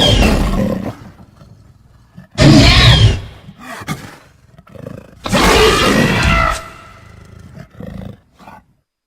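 Designed raptor-dinosaur creature roars: three loud, wavering calls a couple of seconds apart, each about a second long, with quieter growls between. Silent near the end.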